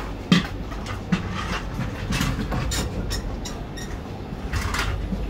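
Footsteps and scattered knocks of people walking along the floor of a Z 24500 double-deck train car, over a steady low hum, with a sharp knock about a third of a second in.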